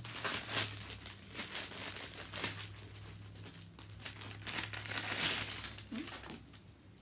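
Clear plastic wrapping crinkling and rustling irregularly as a hair bundle is unwrapped and handled. The crinkling dies away shortly before the end.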